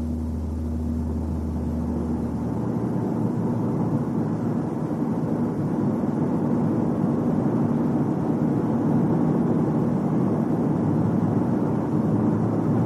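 Car driving noise heard from inside, a steady drone that slowly grows louder. It is a driveline drone that comes in around 80 km/h and peaks at 90 km/h, which the diagnosis puts down most likely to the propeller shaft.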